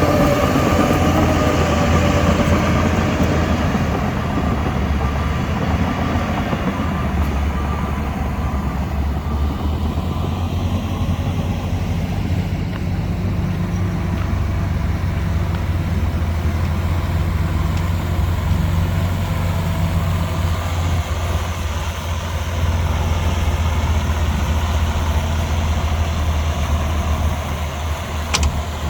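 Diesel engine of a Shantui DH17 bulldozer running steadily with a low drone, busier and a little louder for the first few seconds before settling.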